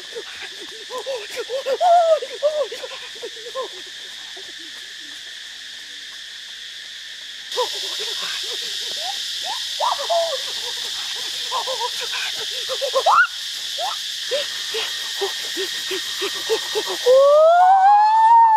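Forest ambience: a steady high insect drone with many short chirping animal calls over it. Near the end, a man's loud drawn-out shout that rises and then falls in pitch.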